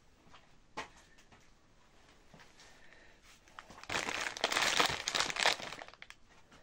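Crinkling, rustling noise lasting about two seconds in the second half, after a single sharp click about a second in.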